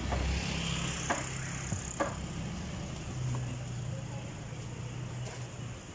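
A motor vehicle's engine runs with a steady low hum. Two sharp knocks come about one and two seconds in from a cleaver working through a large yellowfin tuna.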